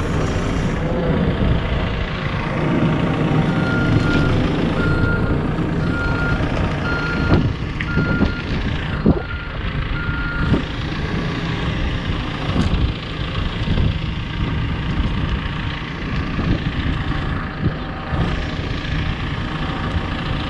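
A heavy machine's reversing alarm beeps at a steady pace, about once every three-quarters of a second, for several seconds over the machine's diesel engine running. It stops about halfway through, leaving the engine running, with a few sharp knocks near the middle.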